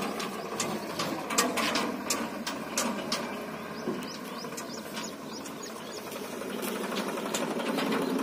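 Tractor engine running as it tows an empty trolley, with irregular sharp knocks and rattles from the trolley, dense for the first three seconds and only now and then after that.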